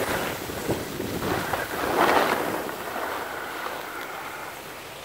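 Skis sliding and scraping over packed snow in swelling swishes, loudest about two seconds in, with wind buffeting the microphone.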